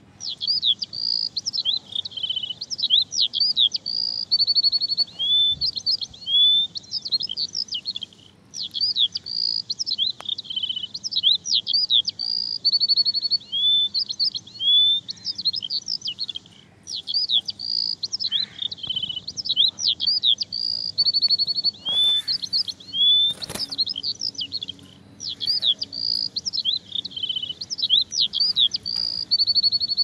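Small songbirds chirping and trilling in quick high-pitched phrases. The same sequence repeats with a short break about every eight seconds, like a looped recording. Two sharp knocks come about three-quarters of the way through.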